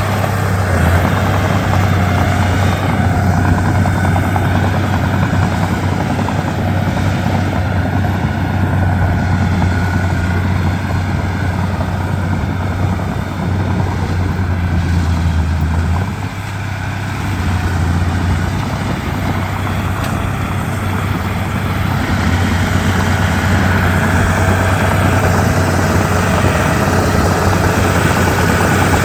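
Komatsu D31P crawler bulldozer's diesel engine working steadily with a deep hum, easing off briefly about halfway through before picking back up.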